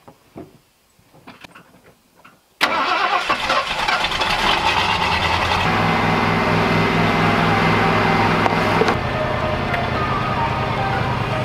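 A few faint clicks, then about two and a half seconds in an engine starts up suddenly and loudly, running rough for a few seconds before settling into a steady idle.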